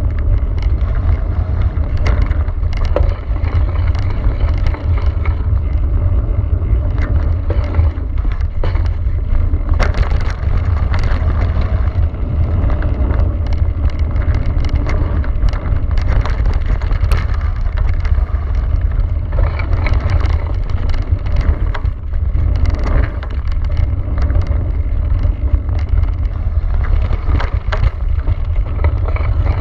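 Cube Stereo mountain bike riding fast down a dirt and gravel trail, recorded by a handlebar-mounted camera. A steady wind rumble on the microphone runs under the tyre noise on the trail, with frequent sharp clicks and rattles from the bike over bumps.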